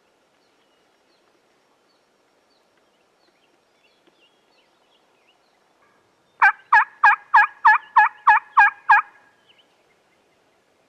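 A loud, close series of about nine evenly spaced turkey yelps, roughly three a second, lasting about two and a half seconds and starting a little past the middle.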